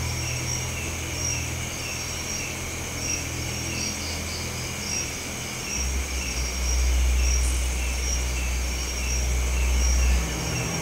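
Night insects chirping in a steady, even rhythm, one chirp a little under every second. Under them is a low rumble that swells about six seconds in and drops away near the end.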